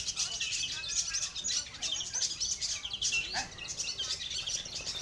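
Many long-tailed shrikes (cendet) singing at once: a dense, continuous chorus of overlapping high chirps and trills.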